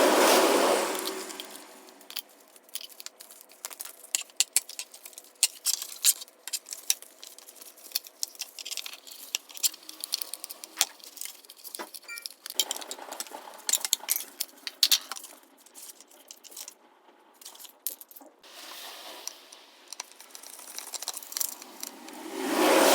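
Many quick clicks and clinks of small hard parts being handled. A louder whirring swell comes at the start and again at the end.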